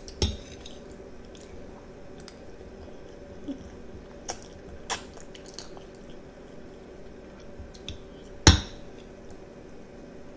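A metal fork twirling spaghetti and clinking against a plate a few times, the loudest clink about eight and a half seconds in, with a child's wet chewing between.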